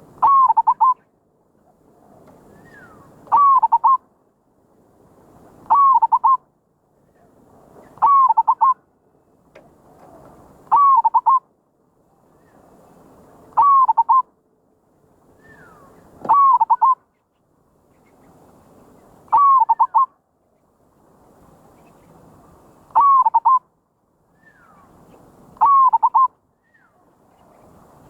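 Zebra dove (merbok) singing its lure song: a short, quick cooing phrase repeated about every two and a half to three seconds, about ten times, with a faint hiss between phrases.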